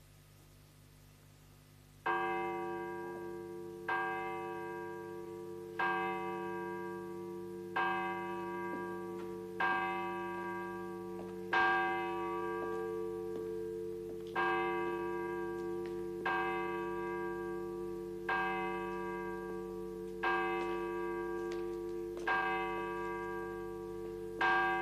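A single church bell tolling slowly for the dead: twelve strikes, one about every two seconds, each ringing on and fading before the next. It starts about two seconds in.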